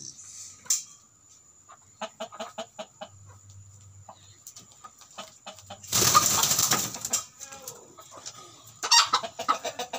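Native Indonesian kampung chickens clucking: a run of short clucks, then a loud noisy flurry about a second long midway, then a quick string of clucks near the end.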